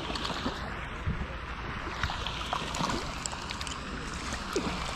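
A hooked trout splashing at the water's surface near the bank, heard as scattered small splashes over steady wind noise on the microphone.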